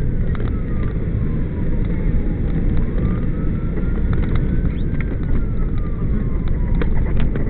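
Emergency vehicle on the move: steady engine and road rumble, with a siren wailing through it. The siren slowly falls in pitch, rises again to a peak about five seconds in, then falls once more.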